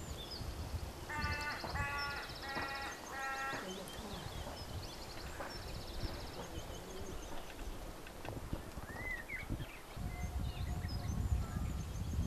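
Livestock bleating: four short calls in quick succession about a second in. Small birds chirp high and a low wind rumble runs underneath.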